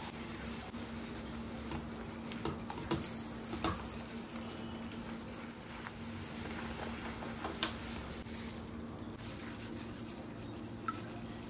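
Carrot purée sizzling and bubbling in a hot nonstick kadai while it is stirred and spread with a silicone spatula, with a few sharp taps of the utensils against the pan.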